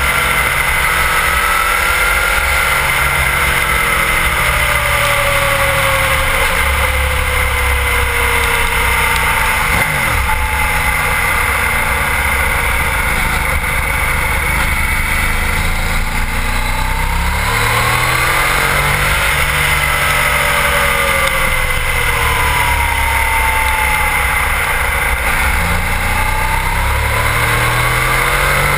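Sport bike engine heard from an onboard camera on the bike, its revs rising and falling repeatedly through gear changes and corners, over a steady low rumble of wind on the microphone.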